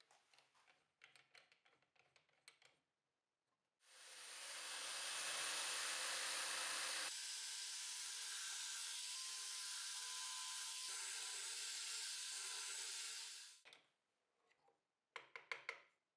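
A power tool running steadily against wood for about ten seconds, its sound changing abruptly partway through. Light clicks and knocks of handling the tool and workpiece come before and after it.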